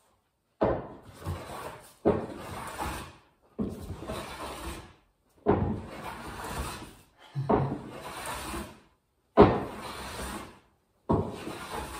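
Hand plane shaving the wooden top edge of a truck camper's wall: seven even push strokes, each starting sharply and rasping for about a second, with short pauses between.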